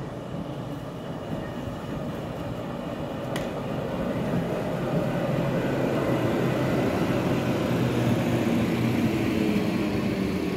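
A tram rolls past close by on street rails, its wheels running on the track in a steady rumble that grows louder as it passes. A single sharp click comes about three and a half seconds in.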